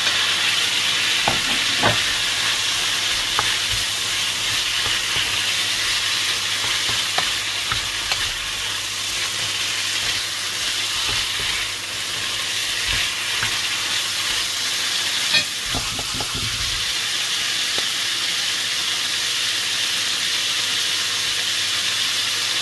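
Pork and sliced bitter melon sizzling steadily in a nonstick frying pan while being stirred with a wooden spatula. A few short knocks and scrapes of the spatula on the pan, clustered near the start and about two-thirds of the way through.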